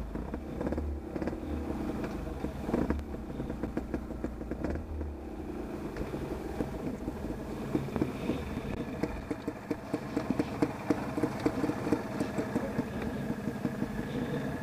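Off-road motorcycle engine running, with a run of short regular pulses through the second half.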